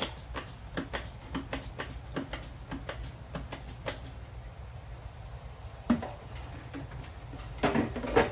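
A quick irregular run of sharp clicks and taps, with a few more about six seconds in and a cluster near the end: hands at work on the air compressor's lines and fittings while they are checked for leaks. A steady low hum runs underneath.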